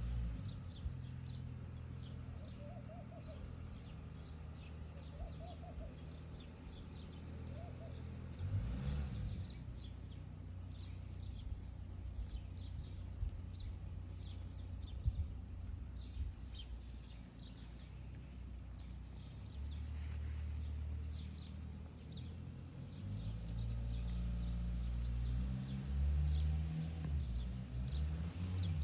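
Small birds chirping repeatedly, short high calls over a low, uneven rumble.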